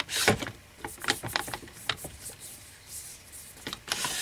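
Collapsible M4-style stock sliding along an AR-15's oiled buffer tube: a sharp scrape just after the start, then a string of clicks and plastic-on-metal rubbing as it is moved back.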